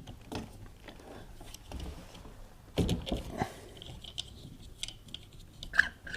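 Scattered light clicks and metallic clinks of a hand tool undoing the nut that holds a tumble dryer's heater fan, and of the fan's metal parts being handled, with a louder knock about three seconds in.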